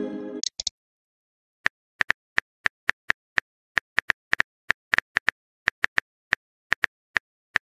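Phone keyboard typing sound effect: short, light key-tap clicks at about three a second, a little irregular. The tail of a bright message-pop chime dies away at the very start.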